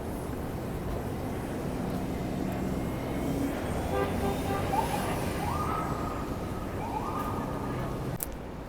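Steady vehicle or traffic rumble, with two short tones that step up in pitch near the middle and a sharp click near the end.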